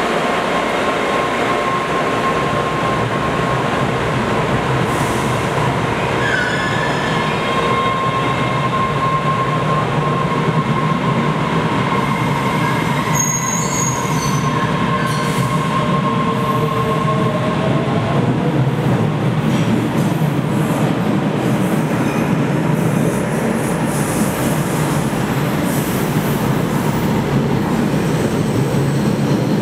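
MBTA Red Line subway train pulling out of an underground station, running steadily with its wheels squealing in thin, high, drawn-out tones.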